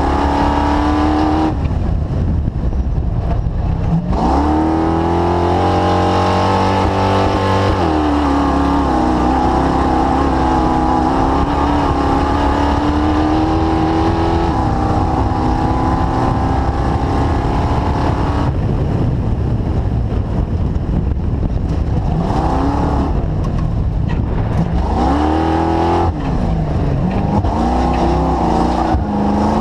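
The engine of the DirtKinetics Explorer being driven around the course, running loud. Its pitch climbs and eases off several times as the throttle is opened and closed.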